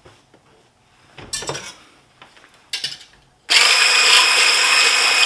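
Electric hand blender with a whisk attachment whipping egg whites in a plastic beaker. It starts suddenly about three and a half seconds in and runs loud and steady at high speed, with a high whine. A few light clinks and knocks come before it.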